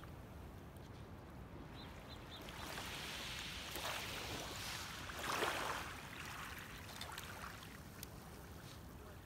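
Shallow water lapping and washing at the edge of a sandy beach, swelling to a louder wash about five seconds in and then settling back.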